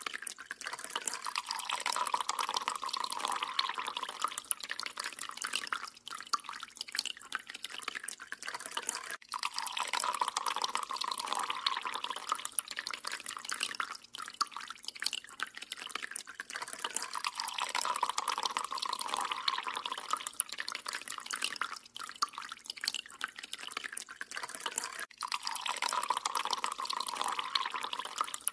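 Water dripping and trickling from a kitchen tap into a stainless steel sink, many small drips over a hiss that swells and fades every several seconds.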